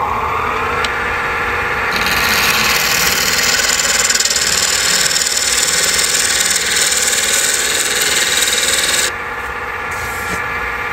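Wood lathe motor running with a steady whine while a turning tool cuts the spinning purpleheart blank, a rough scraping hiss that stops about nine seconds in. Near the end the lathe's whine starts to fall as it spins down.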